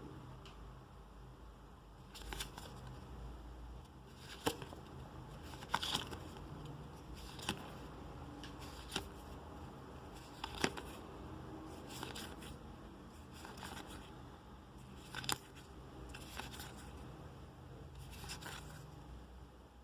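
Trading cards and their packaging being handled: scattered light clicks, taps and rustles, one every second or two.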